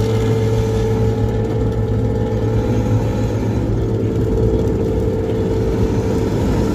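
Intercity bus with a 'ngorok' (snoring) exhaust, droning steadily at highway cruising speed with no change in revs.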